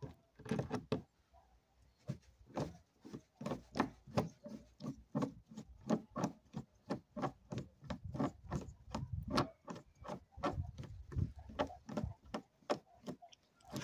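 Parkside long-handled hand riveting tool clicking and clunking over and over, about two to three sharp strokes a second, as it is worked in a hole in the car's bodywork.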